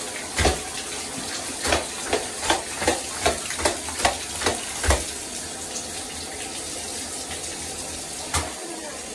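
Tap water running steadily into a bathtub while a spin mop is rinsed in it. Over the first five seconds there are about ten sharp knocks, two or three a second. After that only the running water is heard, apart from one more knock near the end.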